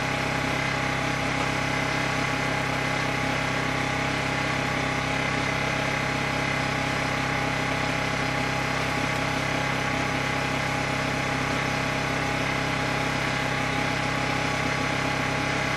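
A portable generator's engine running at a steady speed, an unchanging hum.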